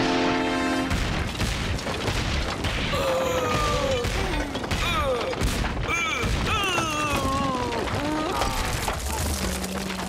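Cartoon soundtrack: a character laughing wildly in the middle, the pitch wavering up and down, over heavy crashing and rumbling sound effects and music.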